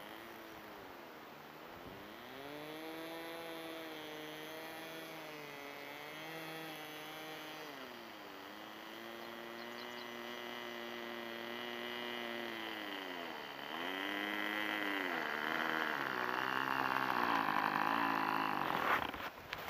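Magnum XL .25 two-stroke glow engine of an RC model plane running at taxi throttle, its note dipping and rising several times as the throttle is worked. It grows louder as the plane comes close, then cuts off sharply near the end.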